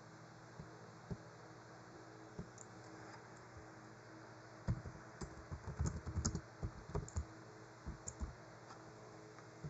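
Computer keyboard keys being pressed: a few single clicks, then a quick run of keystrokes about halfway through, over a faint steady low hum.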